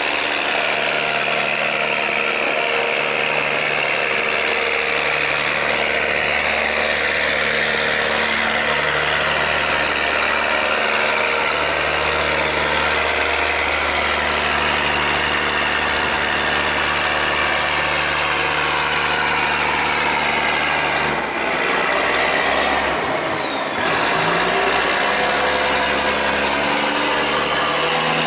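Boat's diesel engine running steadily with a high whine. About 21 seconds in, the whine falls in pitch, then rises again from about 24 seconds in, as the engine speed drops and picks up.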